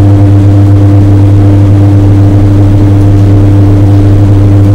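Steady, loud electrical hum of TIG welding on Hastelloy pipe at about 93 amps: the arc and welding machine drone without a break.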